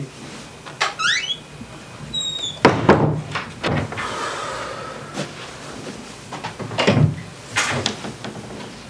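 An interior door being handled: a brief squeak, then several thuds and knocks as it is opened and shut.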